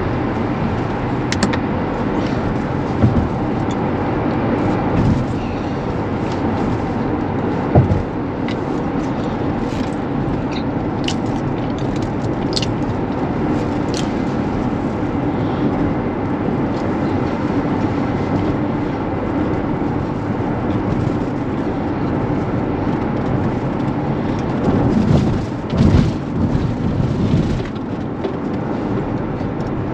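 Steady road and tyre noise inside the cabin of a Tesla Model X driving at road speed, with no engine note. A few short knocks and clicks break in, the sharpest about eight seconds in and a louder cluster near the end.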